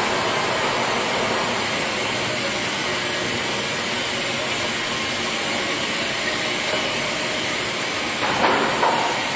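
LeBlond 31x120 NI heavy-duty lathe running at its slowest spindle speed, about 8 RPM: a steady, even machine noise from its 20 HP drive, with a brief louder noise near the end.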